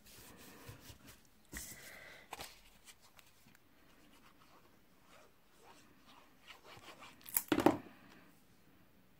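Paper and card being handled on a cutting mat: sheets rustling, sliding and being pressed down, with scattered light taps and one louder short noise near the end.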